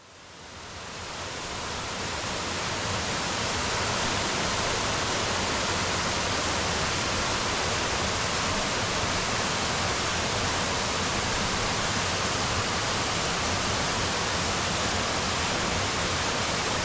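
Small waterfall on a mountain headwater stream: water falling and splashing in a steady rush, fading in over the first couple of seconds.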